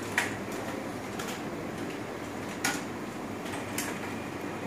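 A few scattered, sharp clicks of computer keyboard keys and mouse buttons, about one a second, over a steady room hum.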